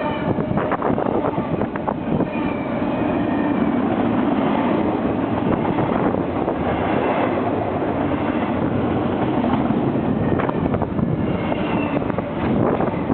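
Double-stack container freight train rolling past in a steady rumble of wheels on rail, with scattered clicks and faint high wheel squeals now and then.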